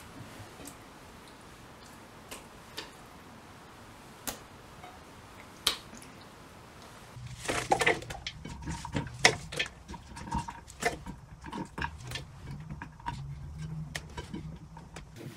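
A few soft, wet taps as raw sheep tongues are laid by hand among sheep heads in a steel pot. About seven seconds in, a dense run of rustling and light clicking starts as chopped raw onion pieces are dropped into the pot and spread over the meat by hand.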